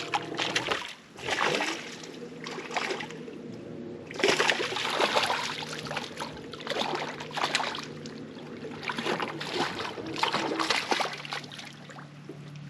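A hooked bowfin (mudfish) splashing and thrashing at the water's surface in repeated irregular bursts during the fight, over a steady low hum.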